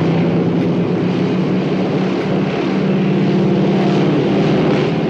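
Curtiss P-40 Warhawk fighters' V-12 piston engines running with propellers turning, a loud, steady drone as the planes roll along the ground.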